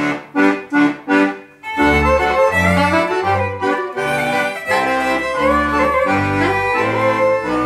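Accordion-led folk band playing: the accordion sounds about four short, clipped chords, then after a brief break the band comes in with a double bass stepping through low notes under held melody lines from accordion, violin and clarinet.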